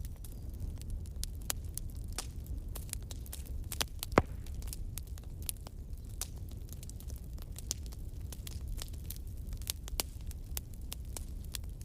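Bonfire crackling: irregular sharp pops and snaps over a steady low rumble of the burning fire, with one louder pop about four seconds in.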